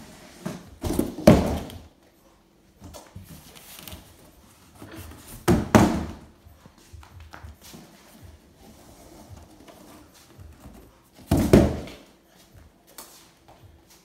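Large empty cardboard box knocking and scraping against a wooden floor as it is shoved and handled, with three loud thumps: about a second in, around the middle, and late on, and quieter scuffing in between.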